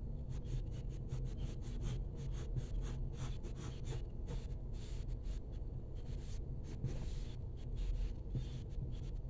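Colored pencil scratching on paper in quick, repeated short strokes as fine, long feather lines are drawn, over a steady low hum.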